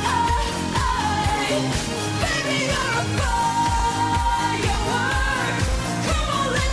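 Pop song with a female lead vocal singing long held notes over a steady driving drum beat and full band backing.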